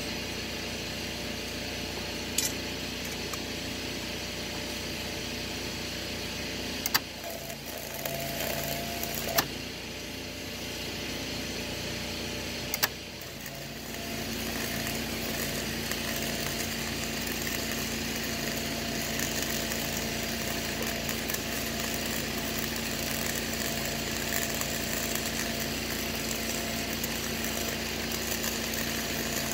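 Four sharp knocks in the first half, then about halfway through an arc strikes and flux-core wire welding runs on as a steady crackling hiss.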